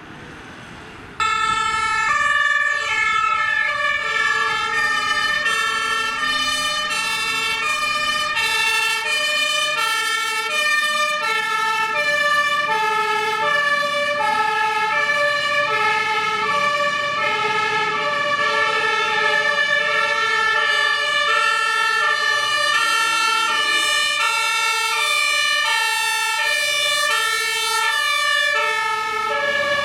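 Two-tone sirens (Martinshorn) of several German fire engines sounding together, each switching back and forth between a high and a low note, out of step with one another. They come in suddenly about a second in.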